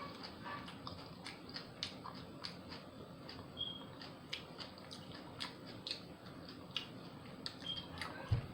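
Close-up chewing of a veggie sub sandwich: a steady run of wet clicks and smacks from the mouth. Two brief high squeaks sound midway and near the end, and a low thump just before the end.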